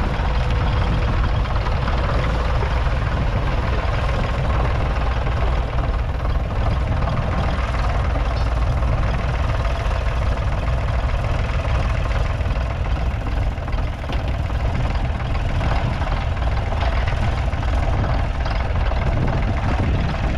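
1951 Nuffield Universal DM4 3.4-litre four-cylinder diesel tractor engine running steadily under load as it pulls a two-furrow mounted plough through the ground.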